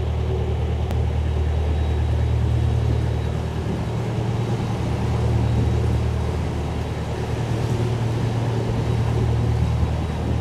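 Narrowboat's diesel engine running steadily at cruising revs, a low, even drone.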